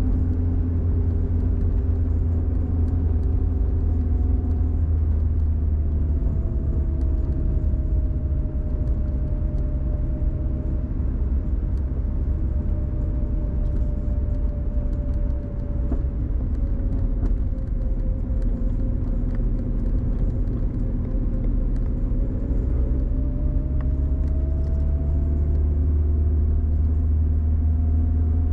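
Car driving, heard from inside the cabin: a steady low rumble of engine and tyres on the road. The engine's hum sinks slowly in pitch through the middle and climbs again near the end.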